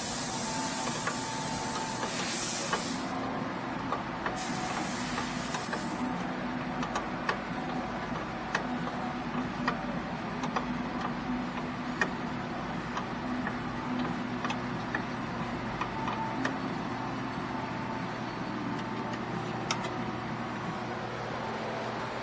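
Steady low mechanical hum of garage background with two stretches of hiss in the first six seconds. Scattered light metallic clicks come from a wrench working the brake line fitting and the wheel cylinder bolts on a car's rear drum brake.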